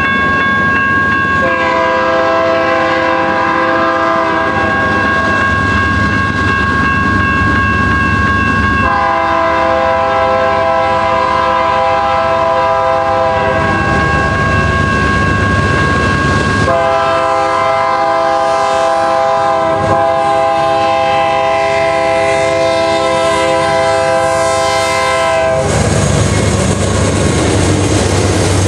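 BNSF GE Dash 9 diesel locomotive blowing its multi-note air horn in three long blasts, about three, five and nine seconds long, over the rumble and clatter of the passing train. Near the end the horn stops and only the heavier rumble of the locomotives and wheels going by is left.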